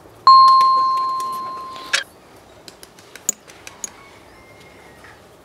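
A small metal object is struck once and rings with a clear steady tone that dies away over almost two seconds, ending in a short clatter. A few light metallic clicks follow as a key and a meat grinder plate are handled on sandpaper.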